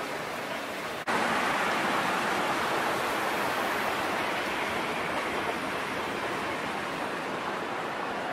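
Steady, even hiss of outdoor street ambience with no distinct events. It jumps louder at a cut about a second in and eases slightly afterwards.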